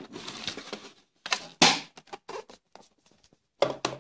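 Small cardboard product box being handled and opened: card rustling and sliding against card, with a louder scrape about a second and a half in, a few light knocks, and another short scrape near the end.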